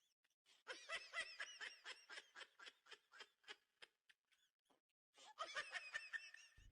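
A person laughing in quick, rapid-fire bursts, two runs of laughter with a short pause between them about four seconds in.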